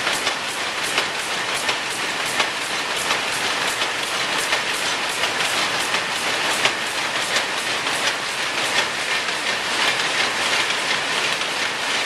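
Narrow vintage selvedge shuttle loom running at full speed and weaving denim: a steady, rhythmic clatter as the wooden shuttle is thrown across and the beater strikes, about three beats a second over the machine's continuous rattle.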